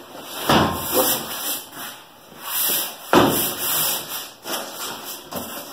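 A shipping package being opened and unpacked by hand: irregular rustling and scraping of cardboard and packing material, with a sharp knock about half a second in and another about three seconds in.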